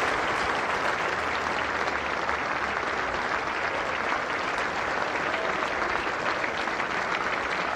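Tennis crowd applauding steadily at the end of the match.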